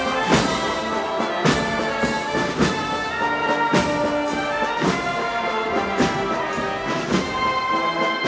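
Street procession band playing a slow Spanish processional march: sustained wind and brass chords over a drum stroke about once a second.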